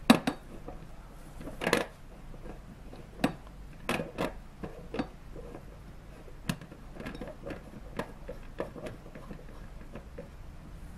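Irregular clicks and clinks of glass LED filament lamps being handled and fitted into lamp holders by hand, a few sharper knocks near the start and many lighter ticks after.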